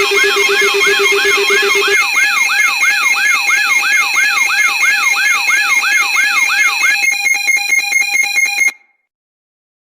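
Electronic alarm sound effect: fast repeating whoops, about three or four a second, over steady electronic tones. A low tone drops out about two seconds in. Near the end the whoops change to a rapid pulsing beep, and the sound then cuts off suddenly.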